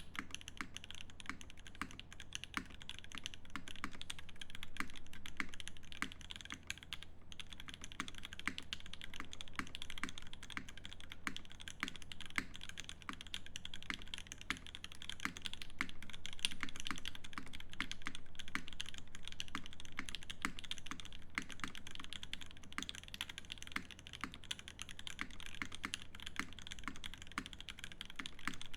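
Fast, continuous typing on an IRON165 mechanical keyboard with lubed Banana Split linear switches, a copper plate and GMK keycaps: a dense stream of key clacks, with a short lull about seven seconds in.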